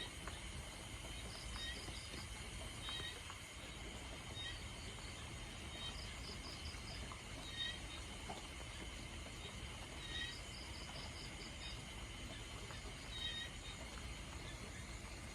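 Steady rain falling at night, an even hiss. Over it run a constant high trill and short chirps in quick runs of four or five, repeating every few seconds, from small night animals calling.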